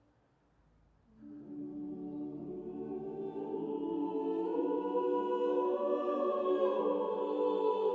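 A choir singing slow sustained chords, entering about a second in after a brief hush and growing steadily louder.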